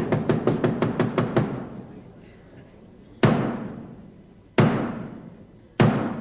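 A woman laughing heartily in quick, rapid pulses that die away after about a second and a half. Then come three loud, drum-like hits about a second and a half apart, each ringing out and fading.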